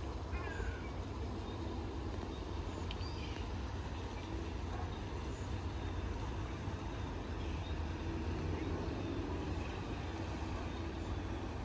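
Steady low engine rumble in open-air ambience.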